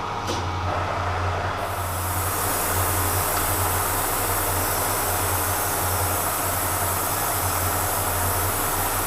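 Kearney & Trecker milling machine running at low spindle speed with a steady hum. About two seconds in, a mist coolant sprayer starts with a steady high hiss.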